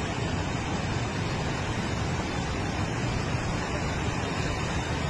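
The Choqueyapu River in flood, its water rushing steadily along its channel and over its banks. The river is in spate from intense rain.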